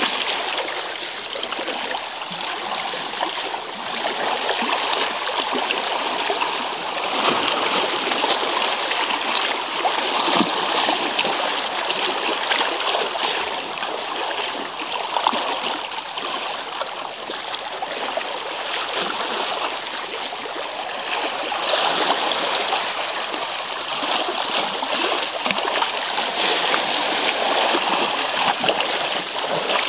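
Seawater washing and splashing over shore rocks and pebbles in a continuous rush that swells and eases every few seconds.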